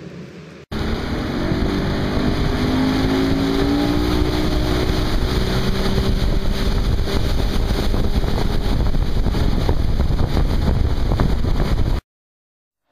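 Engine of a high-speed passenger water bus running at speed on the river, under a steady rush of water and wind. The engine note rises a little in the first few seconds. The sound starts abruptly about a second in and cuts off abruptly near the end.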